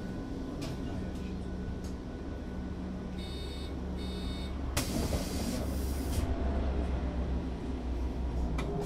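2001 Berkhof Premier AT 18 articulated trolleybus with a steady low electrical hum and rumble. About three seconds in come two short electronic beeps, then a loud hiss of compressed air that lasts over a second.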